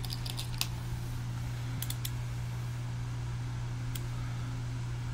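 A few light clicks from small plastic test-lead hook clips being handled, a cluster in the first second, a pair about two seconds in and one near four seconds, over a steady low hum.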